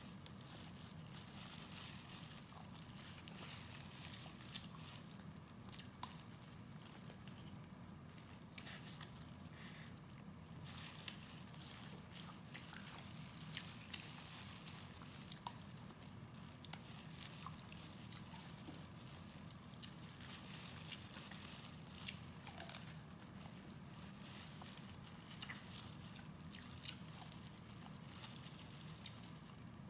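Faint close-up eating sounds: a person biting and chewing pork knuckle, a steady run of small mouth clicks and smacks over a low steady hum.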